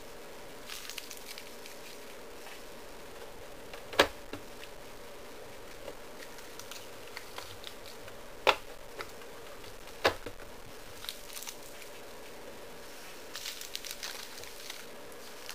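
Plastic Lego parts of a home-built garbage truck model clicking and knocking as its rear hopper is worked by hand. There are three sharp knocks, about four, eight and a half and ten seconds in, among lighter rattles, over a faint steady hum.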